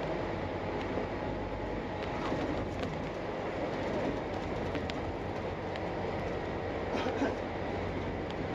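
Steady engine and road noise heard from inside a moving bus, a continuous rumble with a few faint rattles.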